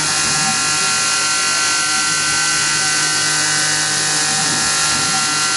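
Tormach PCNC 1100 CNC mill cutting a part during waterline roughing: the spindle and end mill run with a steady whine of several fixed tones, over the steady hiss of flood coolant spraying onto the cutter.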